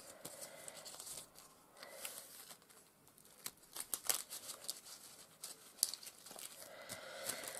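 Soft crinkling and rustling of plastic stencil packets being handled, with scattered small clicks and taps.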